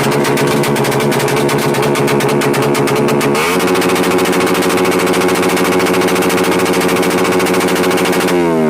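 Raider Fi motorcycle's single-cylinder engine running through an aftermarket Kou exhaust pipe, with a loud, rapid popping exhaust note. A few seconds in it revs up quickly and holds at higher revs, then drops back down near the end.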